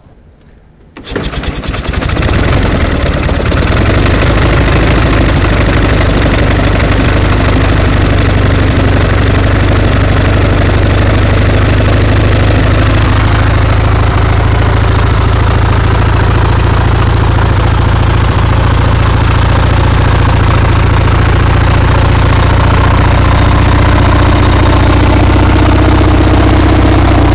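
A WWII-pattern flat-twin sidecar motorcycle engine is started about a second in. It catches at once and runs steadily, loud and even.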